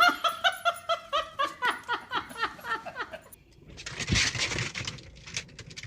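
A person laughing in a run of quick "ha" pulses, about four a second, for about three seconds. Then a rustling, scuffling noise about four seconds in.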